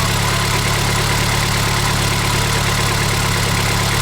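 Truck engine idling steadily. It is an engine with a knock that has been treated with Lucas Oil Stabilizer, which the owner credits with making it quieter.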